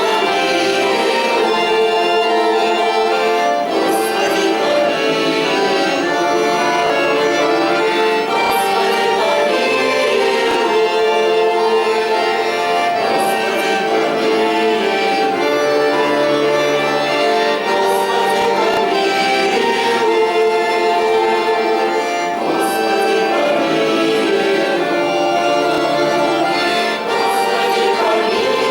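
Russian folk choir music: an accordion carries sustained chords with the choir, and a bright high accent strikes about every four and a half seconds.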